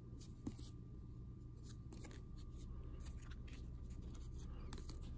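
Faint handling of trading cards and a rigid plastic card holder on a table: scattered light clicks and soft rubs.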